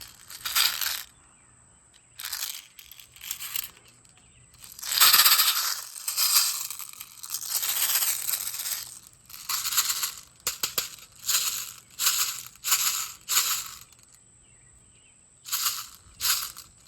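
A series of short crunching noises, roughly one a second and unevenly spaced, with a longer stretch of continuous crunching about five to nine seconds in and a few sharp clicks around ten seconds in.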